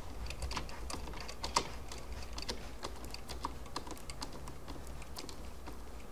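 Light, irregular clicks and taps of a screwdriver turning a trunk box mounting bolt while vice grips hold the nut underneath, with one louder click about a second and a half in.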